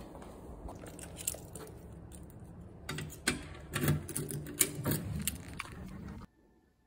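A run of small sharp clicks and clatters of objects being handled over a steady background hiss, busiest in the second half, then cutting off suddenly shortly before the end.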